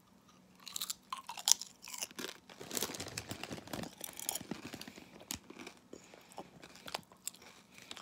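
Someone chewing a crunchy Lay's Classic potato chip: irregular crunches from about a second in until near the end.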